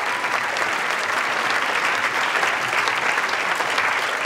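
A large crowd applauding steadily, the many claps blending into one dense, even sound.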